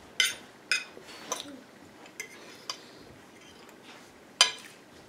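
Metal fork clinking against a plate while salad is picked up: about six short, sharp clinks, the loudest near the end.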